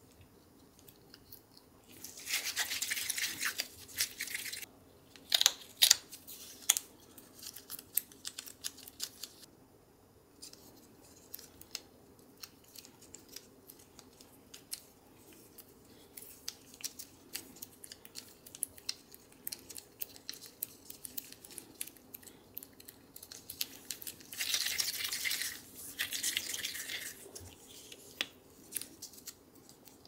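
Gloved hands handling soft cornstarch and condensed-milk dough, pinching, squishing and shaping it into a small ball. Many small clicks and squishes, with two spells of louder rubbing hiss, about two seconds in and again near the end.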